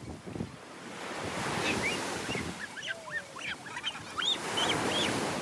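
Ocean surf washing on a beach, swelling through the middle, with a flurry of short, high bird calls over it.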